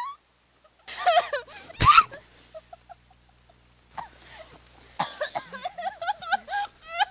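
Nonverbal human vocal sounds: a strained cry, then a single loud cough about two seconds in, and near the end a quick run of short, high-pitched cries.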